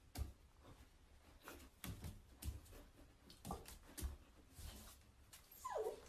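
Corgi puppy moving about on a tile floor: scattered light taps and knocks, then a short whimper falling in pitch near the end.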